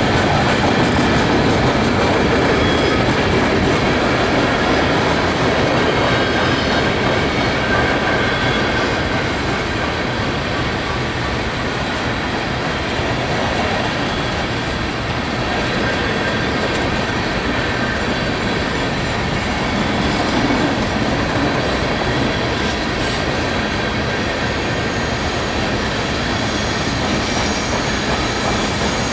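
Union Pacific coal train's hopper cars rolling past: a steady rumble of steel wheels on the rails, with a faint thin squeal from the wheels.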